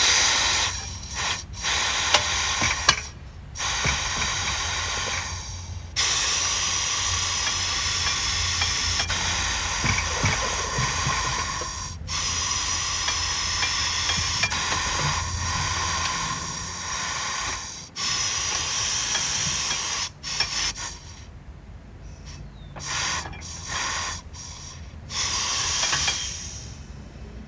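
KATOOL KT-2002 tire changer working a tire off its rim through a ratcheting plate: hissing, whirring mechanical noise with ratchet clicks. It comes in stop-start runs of a second or two, with one long run of about twelve seconds, over a steady low hum.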